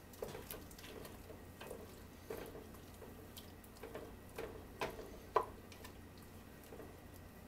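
A wooden spoon stirring soup in a stainless steel stockpot: faint sloshing of liquid, with soft, irregular knocks of the spoon against the pot, the sharpest about five seconds in.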